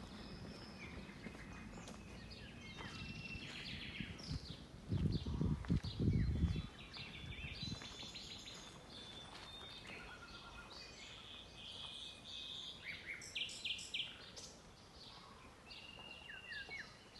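Small forest birds chirping and calling, with many short, high notes scattered throughout. A low rumble about five seconds in lasts a second or so and is the loudest sound.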